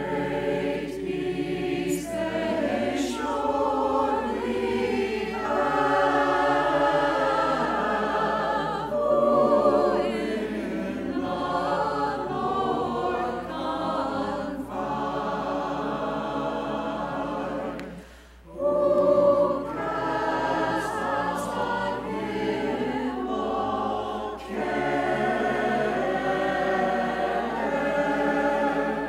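Mixed church choir singing, with a brief pause about eighteen seconds in before the voices come back in.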